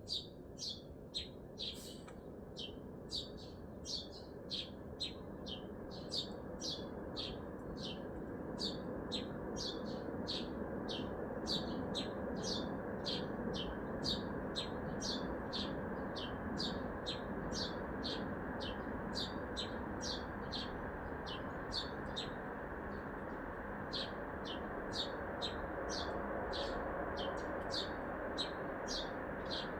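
A small bird chirping shrilly and repeatedly, about two sharp chirps a second, over the steady hum of city traffic that grows louder during the first dozen seconds.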